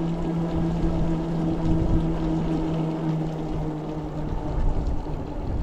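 An Ariel Rider Grizzly e-bike's hub motor whines at a steady pitch under the hiss of its tyres swishing through rain on wet pavement. The whine fades out about four seconds in.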